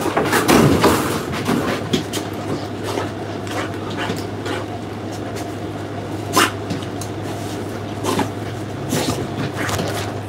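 English bulldog making sounds close to the microphone, over a steady low hum, with scattered sharp clicks and knocks.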